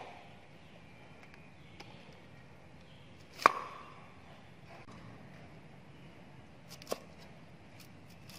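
Cleaver chopping cauliflower on a round wooden chopping block: a few sharp, widely spaced strikes, the loudest about halfway through with a brief ring. Fainter taps come between them.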